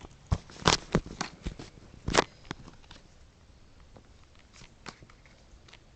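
Pokémon trading cards and their foil booster wrapper being handled: a few short crisp rustles and snaps in the first two and a half seconds, the loudest about two seconds in, then faint handling noise.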